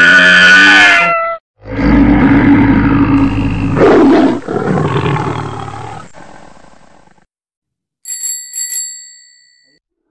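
Cartoon animal sound effects: an animal call with sliding pitch breaks off, then a loud big-cat roar fades away. Near the end a small bell rings twice.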